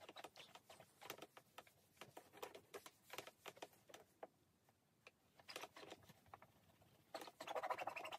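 Faint, irregular small clicks and scuffs of hands handling the plastic casing of a radio-cassette alarm clock while it is wiped clean, with a denser patch of rubbing near the end.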